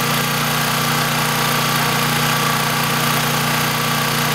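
Steady low mechanical drone over a constant hiss, with no change in pitch or level.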